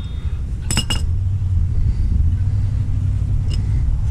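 A few quick clicks of a half-inch drive ratchet a little under a second in, over a steady low rumble.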